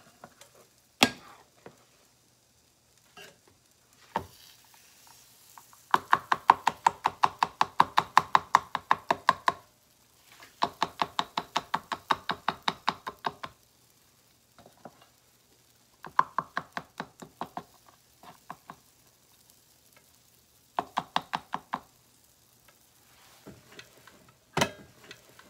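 A spoon clinking quickly and regularly against a metal measuring cup while stirring and scooping waffle batter. It comes in four runs of a few seconds each, with a few single sharp knocks between them.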